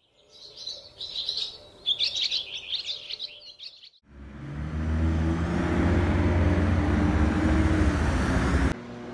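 Small birds chirping and twittering for about four seconds, then a louder low rumble of a vehicle engine in road traffic that runs steadily and cuts off abruptly near the end.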